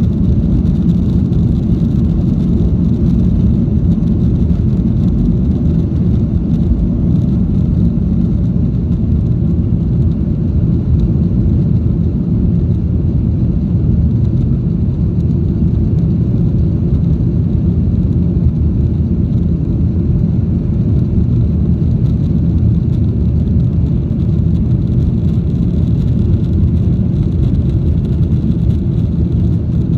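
Jet airliner cabin noise during takeoff and climb-out: the engines and rushing air make a loud, steady low rumble with a faint high whine above it.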